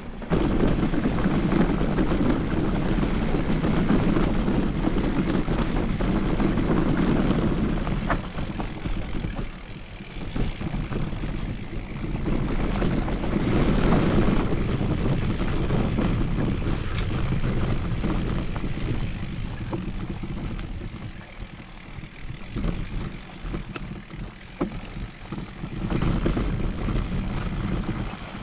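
Mountain-bike ride on a rocky trail: wind buffeting the microphone and tyres rumbling and rattling over stones, getting louder and quieter by turns.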